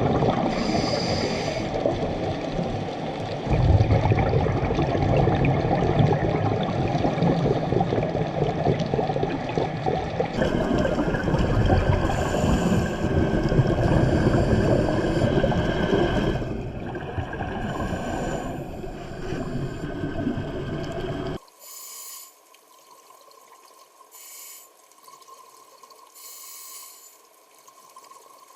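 Loud, rushing water noise. About 21 seconds in it cuts off abruptly to a much quieter hiss with a faint steady tone and short hissing bursts every two to three seconds.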